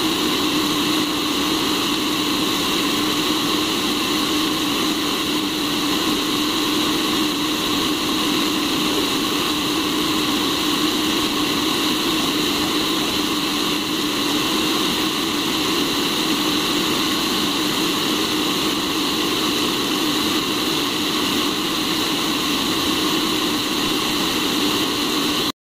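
Cafemasy hot-air coffee roaster running steadily, its fan blowing hot air through the glass chamber to keep the roasting beans swirling. The steady noise stops abruptly at the very end.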